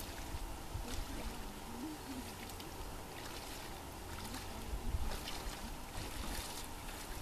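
Seaside ambience: wind on the microphone, uneven and low, over water lapping and splashing in the shallows.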